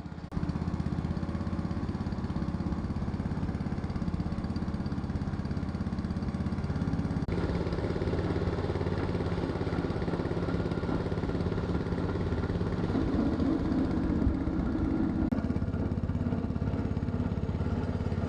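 Tobacco leaf-and-stem grinding machine running with a steady mechanical drone. It grows sharply louder just after the start and changes in tone about seven seconds in.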